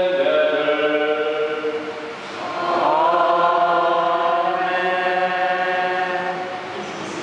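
Sung liturgical chant at Mass, with long held notes. It dips briefly about two seconds in, then a new note rises and is held, fading near the end.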